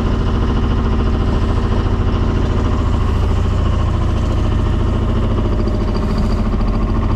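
Sailboat's inboard diesel engine running steadily while motoring, with an even low pulsing hum.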